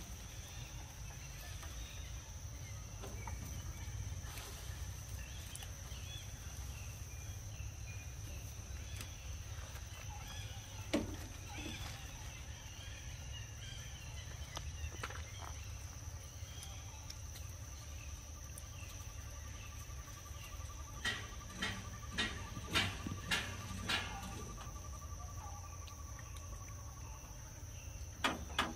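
Outdoor insect ambience: a steady high-pitched insect drone over a low background rumble, with a faint cricket-like trill through the middle. About two-thirds of the way in comes a quick run of sharp clicks.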